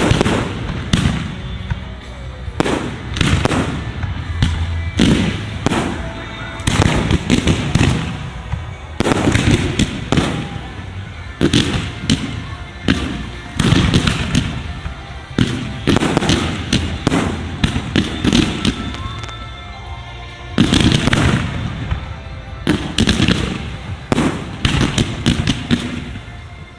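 A fireworks barrage at close range: shells and comets launching and bursting in rapid succession, with crackling between the bangs. The barrage eases briefly about three-quarters of the way through, then a fresh loud volley begins.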